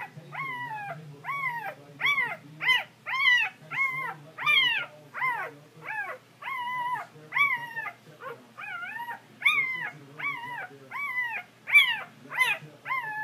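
Four-day-old Brittany puppy crying over and over in high, thin squeals, about two a second, each cry rising and then dropping in pitch.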